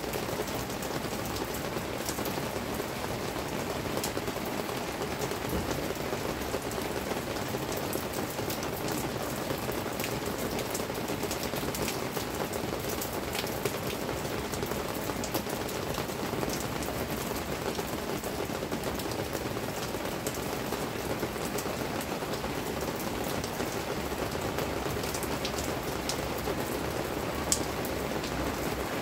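Steady rain falling, an even hiss with individual drops tapping close by and one sharper drop near the end.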